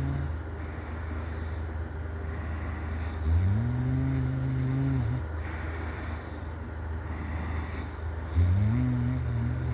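A sleeping person snoring: long droning snores about five seconds apart, each sliding up in pitch at the onset and then holding steady for about a second and a half, with a soft breathy exhale after each, over a steady low hum.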